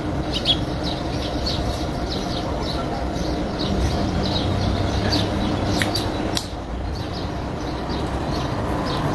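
Many small birds chirping busily over a steady low rumble.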